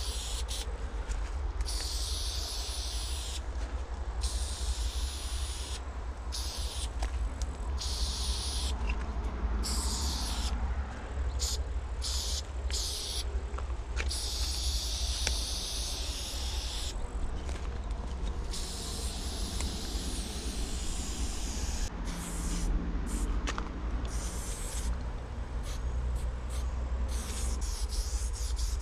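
Aerosol spray paint can hissing in repeated bursts of one to several seconds with short breaks between, as paint lines are sprayed onto a brick wall. A steady low rumble runs underneath.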